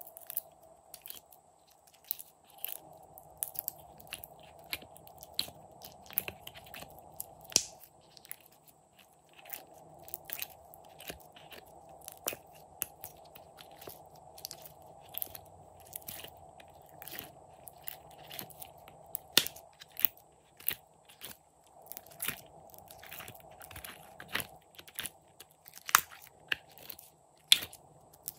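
Frozen glitter slime cubes crunching and crackling as fingers press them out of a silicone ice-cube tray and squeeze them, with irregular crisp crackles several times a second and a few louder snaps.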